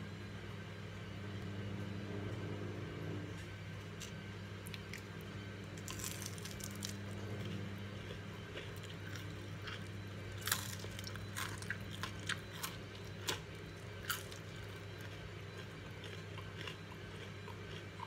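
Crisp batter-fried spinach leaves crackling as fingers press and break them: scattered sharp snaps start about a third of the way in and come thickest and loudest in the middle, over a steady low hum.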